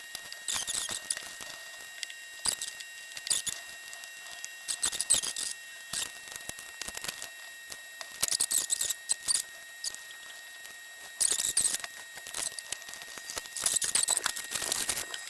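Irregular clusters of small, high scratchy clicks and scrapes from hands and small tools working on a graphics card during disassembly and thermal paste cleaning, with a faint steady high whine underneath.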